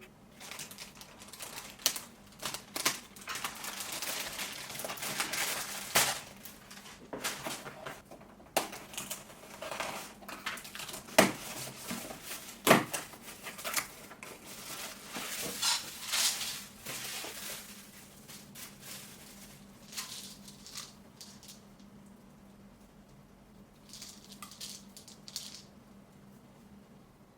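Hands unboxing coffee packaging: rustling and crinkling bags or wrapping, with irregular sharp clicks and clinks of items being handled. The handling is busiest over the first two-thirds and dies down to a few faint rustles.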